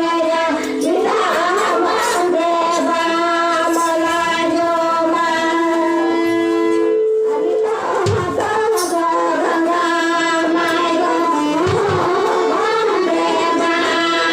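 Santali song playing: singing with held instrumental notes, broken off briefly about seven seconds in.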